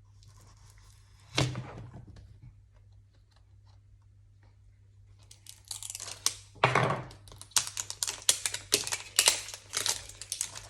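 Blind-pack toy packaging being opened by hand: a single knock, then a long run of tearing and crinkling of the wrapping from about halfway through, as the next layer is worked open.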